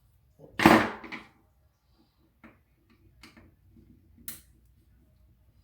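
Plastic keyboard parts being handled: a loud clatter about half a second in, then a few light clicks and taps.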